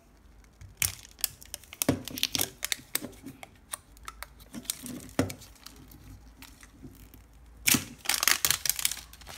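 Plastic and paper wrapping of a Mini Brands capsule ball crinkling and tearing as it is peeled open by hand, in irregular crackles, with a louder burst of crinkling near the end.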